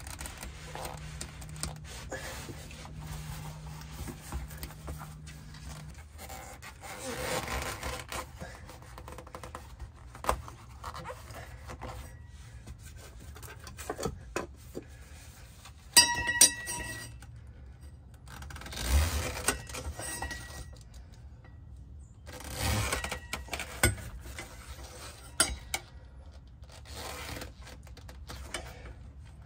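A screwdriver and a Sumo Spring scraping and clinking against the metal rear bump-stop mount of a Sprinter van as the spring is pried into its seat, in scattered bursts. A sharp metallic clink with a brief ring about halfway through is the loudest sound.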